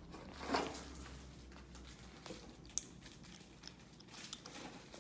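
A cat eating: quiet, irregular chewing and mouth sounds with small clicks, and one sharp click a little past halfway.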